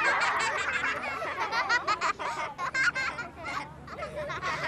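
A group of children's high voices chattering, calling out and laughing over one another, as at play.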